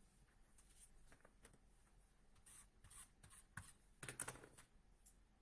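Paper and cardstock being handled on a scrapbook layout: faint rustles and light taps, with a louder flurry about four seconds in.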